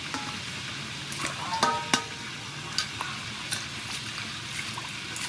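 Water splashing and sloshing in a steel bowl as hands wash cucumbers and mint leaves, with a few sharp knocks against the bowl, the loudest just under two seconds in with a brief metallic ring.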